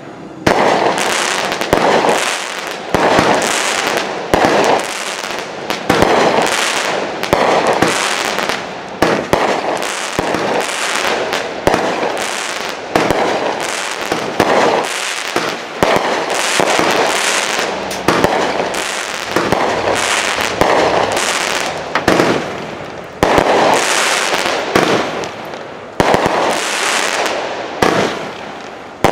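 Phantom Fireworks Rain of Fire Premier 500-gram, 36-shot cake firing, with sharp shell reports about once a second. Each red palm break is followed by crackling.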